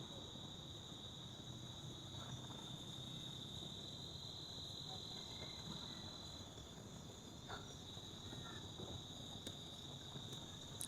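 Faint, steady high-pitched trilling of an outdoor insect chorus, crickets, continuing without a break and easing slightly past the middle.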